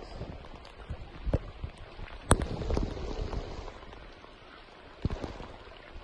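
Heavy rain falling on open floodwater, a steady hiss with a few sharp knocks, the loudest a little over two seconds in and another at about five seconds.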